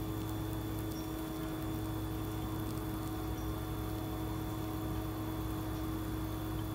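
Steady background hum with a faint high whine, unchanging throughout; the spatula gliding over the soft cream makes no sound that stands out.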